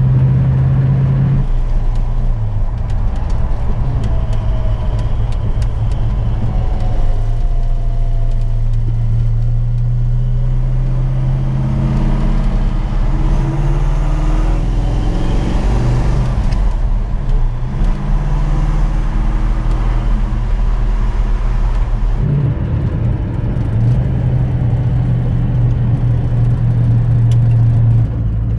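1970 Plymouth Road Runner's 383 big-block V8 running under way, heard from inside the cabin: a steady low engine drone whose pitch climbs in a burst of acceleration about halfway through, then settles, and steps up again near the end.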